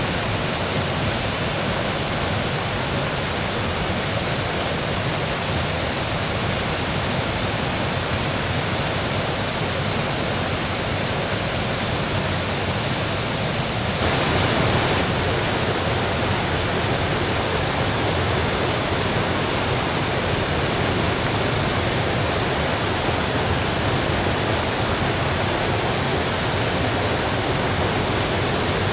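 Rushing water of a mountain headwater stream running over rocks, a steady white-water noise. About halfway through it steps up and sounds fuller.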